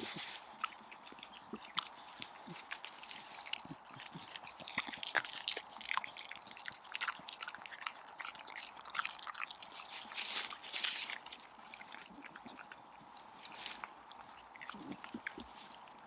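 A Staffordshire bull terrier chewing and tearing at grass, heard as a run of irregular crunches and snaps.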